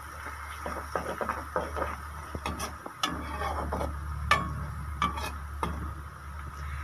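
Sliced onions sizzling as they fry in ghee while a metal spoon stirs them and scrapes and clinks against the metal pot, the sharpest clinks about four and five seconds in, over a steady low hum.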